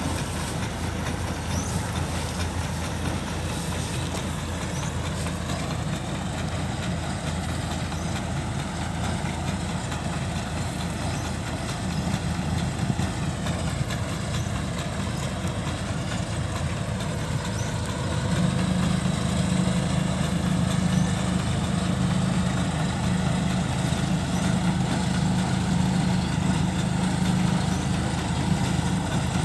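Kubota rice combine harvesters' diesel engines running steadily, with a low drone that grows louder about 18 seconds in.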